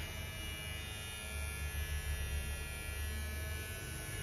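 Electric hair clippers running with a steady buzz while trimming hair on top of the head.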